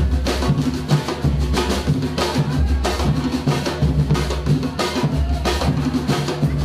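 Drum troupe playing live: a fast, driving rhythm of many drum hits over deep, held bass notes.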